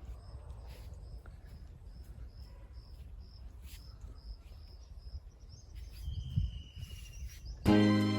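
Crickets chirping in an even, repeating rhythm, with an occasional longer buzzing trill over a low rumble. Loud music starts abruptly near the end.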